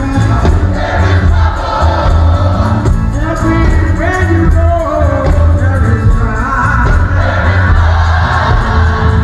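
Live old-school gospel music played loud through a PA: a woman singing lead into a microphone with a group of backing singers, over an amplified band with heavy, steady bass.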